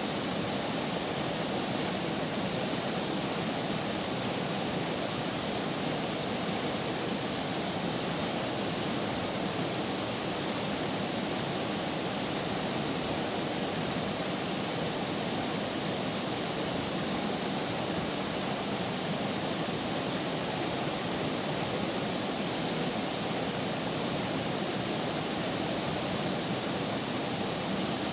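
River water running, a steady, unbroken rush of noise with no change throughout.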